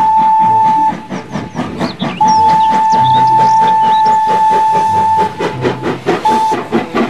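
Steam locomotive whistle blowing a long blast that ends about a second in, a second long blast from about two to five seconds, and a short toot near the end, over the quick, even chuffing of the engine's exhaust as it pulls its coaches.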